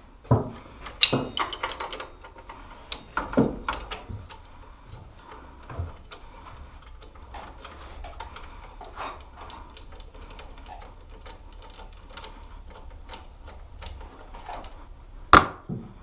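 Hand tools working on a mini motorbike's rear wheel and axle: a run of light, irregular clicks with a few sharper metal knocks, three in the first few seconds and one near the end.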